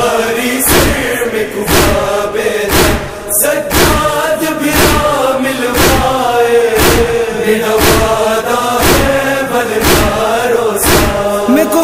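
Shia noha lament chanted by male voices, with a group of mourners beating their chests (matam) in unison, a sharp slap about once a second.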